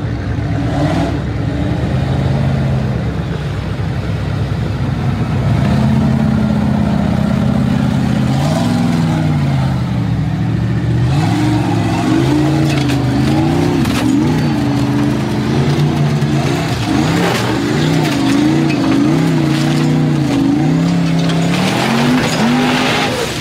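Formula offroad buggy's engine revving hard under load. Its pitch is steadier at first, then from about halfway swings quickly up and down again and again as the throttle is worked on the climb.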